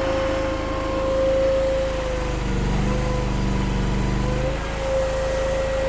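DRT450 mini skid steer's engine running steadily. For about two seconds in the middle its note dips and deepens, as if it is working under hydraulic load lifting the heavy trailer tongue.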